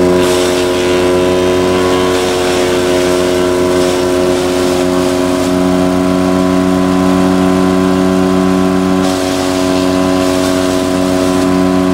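Toro wood chipper running at a steady engine speed: a hum of unchanging pitch with a hiss above it that thins out about nine seconds in.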